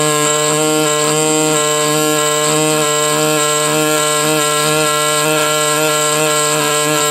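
Pneumatic air scribe buzzing steadily as its needle tip chips matrix away from a fossil crab in a rock concretion.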